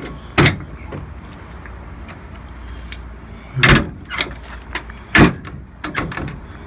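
Scrap metal being worked loose in a truck bed: three loud bangs and several lighter knocks and clanks, over a low steady hum.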